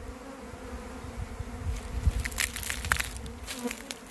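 A honey bee swarm in flight, buzzing as a steady hum. From about halfway in, crunching and crackling from the brush joins it.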